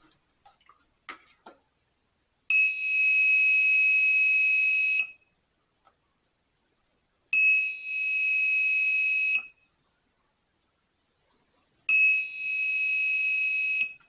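Doorbell buzzer switched by an NPN transistor, giving three steady high-pitched beeps about two to two and a half seconds each as the push button is pressed and released. The transistor turns the buzzer on while the button is held and it stops on release.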